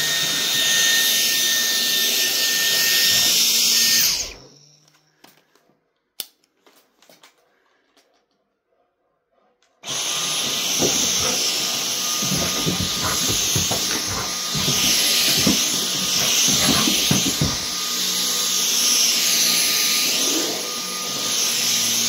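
Household vacuum cleaner running with a steady whine, stopping about four seconds in and starting up again about ten seconds in. A few clicks fall in the quiet gap, and irregular low bumps come while it runs again.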